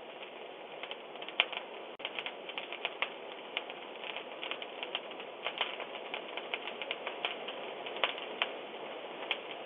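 Fire crackling, heard through a doorbell camera's microphone: a steady hiss with many irregular sharp pops.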